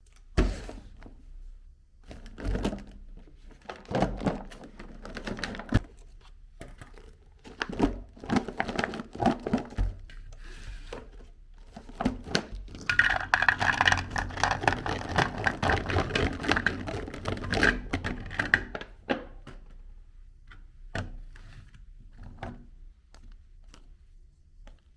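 Meat grinder crushing cookies: irregular knocks and crunching, densest and most continuous through the middle of the stretch, thinning to scattered clicks near the end.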